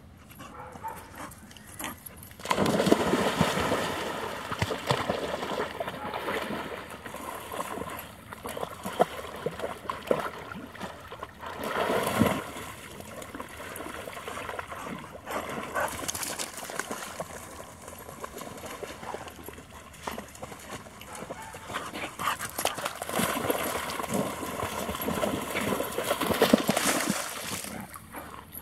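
Water sloshing and splashing as dogs swim through a pond, with a dog's voice heard at times. It grows louder a couple of seconds in and swells twice more, about halfway and again near the end.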